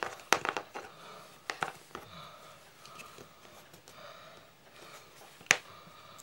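Handling noises of small leatherwork tools and parts on a cutting mat: a few light clicks and taps, then one sharp click near the end.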